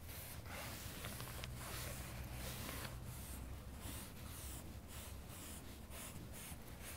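Faint rubbing of a cloth rag wiping excess oil finish off a mahogany door panel, in short repeated strokes over a soft hiss.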